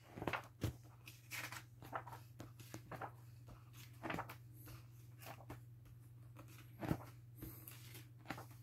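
Pages of a large glossy-paged book being leafed through by hand: a run of short, soft paper rustles and swishes. A faint steady low hum lies underneath.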